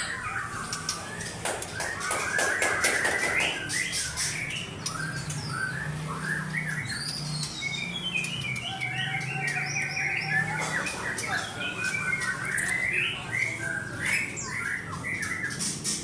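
Many caged white-rumped shamas (murai batu) singing at once: overlapping whistled phrases and chirps, over a low steady hum.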